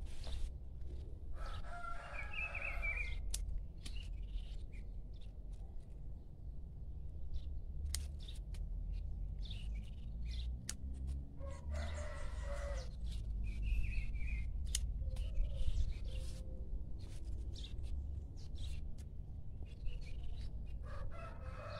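Pruning shears snipping rose stems, a sharp click every few seconds, with birds calling several times in the background.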